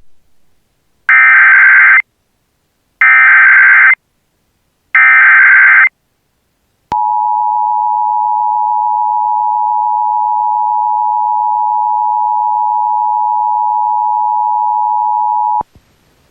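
Emergency Alert System SAME header: three loud one-second bursts of warbling data tones a second apart, followed by the two-tone EAS attention signal held steady for about nine seconds and then cut off. This sequence marks the start of an emergency alert broadcast.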